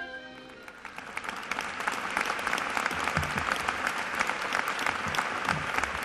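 Music dies away and an audience starts clapping about a second in, the applause quickly filling out into steady, dense clapping.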